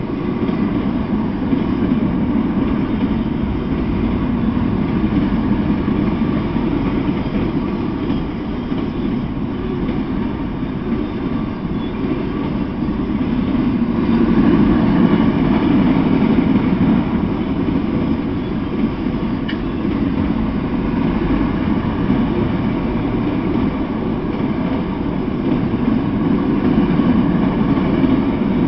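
Freight train of autorack cars rolling past at speed, the steady noise of wheels on rail, growing slightly louder about halfway through.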